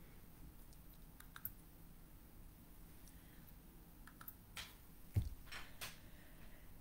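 Faint, scattered clicks and taps in a quiet room, with a soft thump a little after five seconds in.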